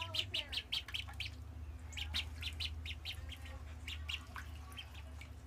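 A group of week-old ducklings peeping, short high calls coming thick and fast in the first second and again about two seconds in, with scattered peeps between. A steady low hum runs underneath.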